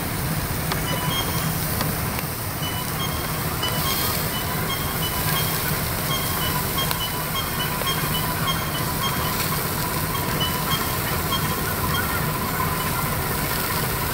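Bacon and beef patties sizzling on a charcoal grill, a steady hiss with a few faint crackles, over a low steady rumble.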